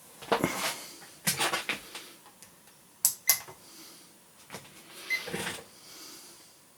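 Handling noise: a string of short, irregular knocks, clicks and rustles as objects are picked up and set down, with quiet gaps between.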